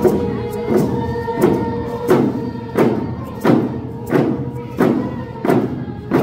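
A Lummi paddle song: a group of voices singing over a steady hand-drum beat, about three strikes every two seconds, with long held notes in the first couple of seconds.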